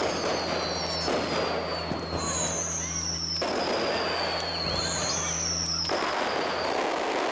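Fireworks going off in a dense crackle, with three long whistles in turn, each sliding down in pitch over a couple of seconds.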